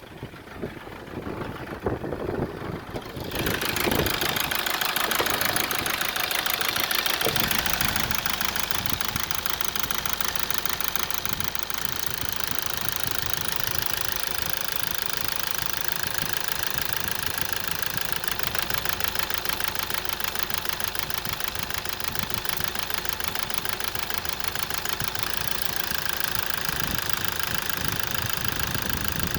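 A few short thumps, then a Toyota 2AD-FHV 2.2-litre common-rail diesel starts up about three seconds in and idles steadily with a fast, even diesel clatter.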